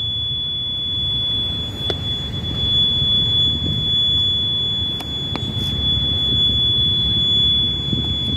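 Cable locator receiver sounding a steady high-pitched tone, unchanging in pitch, while it picks up the track-circuit signal. A low rumble runs underneath, with a few faint clicks.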